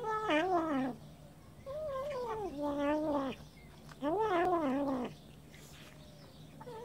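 Siamese kittens giving drawn-out, wavering yowls while eating a piece of fish: the possessive food-guarding call of cats that won't share. A string of calls about a second each, the last one faint.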